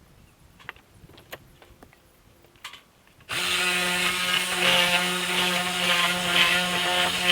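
A few faint knocks, then about three seconds in a hand-held power tool starts suddenly and runs steadily with a loud, even motor whine.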